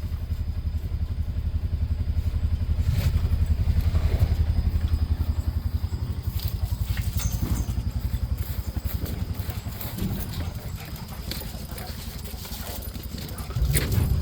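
An engine running steadily at low revs, with an even, rapid low pulse and faint clicks and rustles over it.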